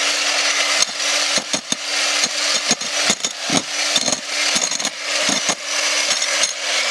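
Corded electric jackhammer running, with a steady motor hum and irregular knocks as its chisel bit hammers on a plastic children's drawing board. The motor starts to wind down at the very end.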